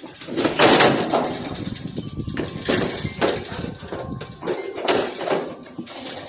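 Metal parts of a clothes dryer being pulled apart and moved, with irregular scraping and clattering noises.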